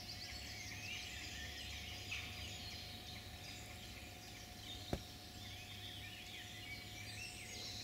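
Faint distant birdsong over a low steady hum, with a single soft click about five seconds in.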